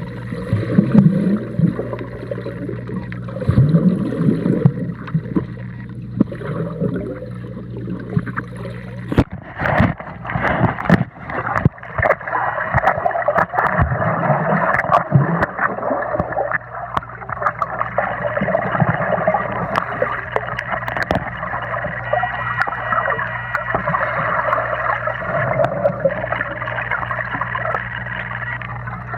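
Foam swim noodle blown into in the water, giving low fart-like honks that rise in pitch, among gurgling water. From about nine seconds in, a dense bubbling and splashing hiss with sharp clicks takes over, and another honk comes through it a few seconds later.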